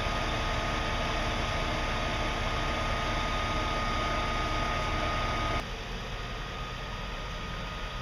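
Fire truck engine idling, a steady hum with a thin high tone over it; about five and a half seconds in it drops suddenly to a quieter, duller rumble.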